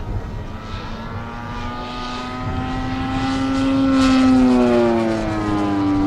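Propeller-driven RC scale model of a Morane-Saulnier D-3801 flying past. The engine and propeller drone grows louder and slightly higher to a peak about four seconds in, then drops in pitch as the plane passes.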